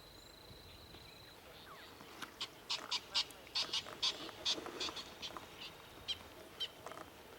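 A wild animal, either a bird or a wild dog, gives a rapid series of short, sharp, high-pitched calls, two or three a second. They start about two seconds in and fade near the end. A thin, steady, high whistle-like tone sounds during the first second.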